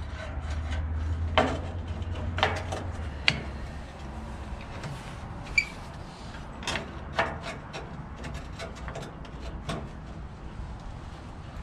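Irregular knocks and clanks of metal grill parts being handled, with one short metallic ping about five and a half seconds in, over a low steady hum.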